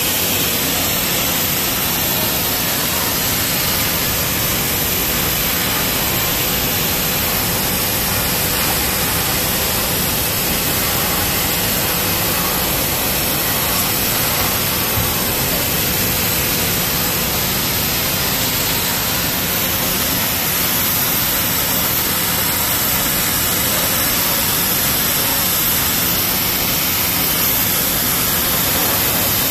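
Trumpf laser cutting machine running while it cuts 2 mm aluminium sheet: a steady, loud hiss with a faint steady hum underneath.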